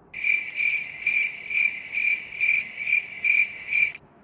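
Cricket chirping, a steady high trill pulsing about twice a second, which starts and cuts off abruptly: a dropped-in 'crickets' sound effect marking an awkward silence.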